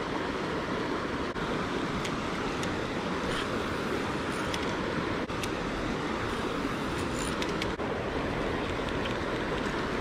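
Steady rushing of shallow river rapids, with a few faint light ticks over it.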